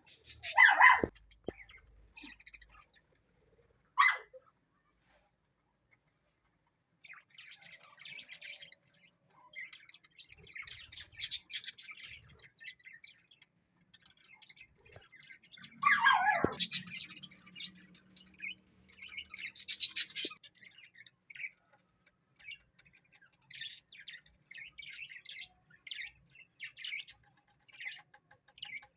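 Pet parrot calling: loud squawks that slide down in pitch right at the start and again about halfway through, between stretches of rapid, high chirping and chatter.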